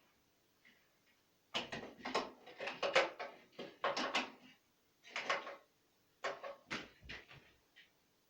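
Knocking on a window at night: five short clusters of quick raps and rattles, spaced about a second apart.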